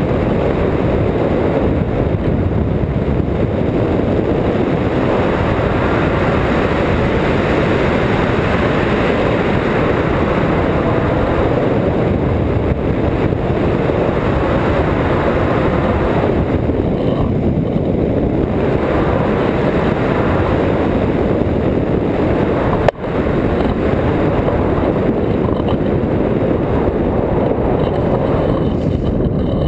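Wind rushing hard over the microphone of a camera mounted on a hang glider in flight: a loud, steady, low-pitched rush, with one brief dropout about two-thirds of the way through.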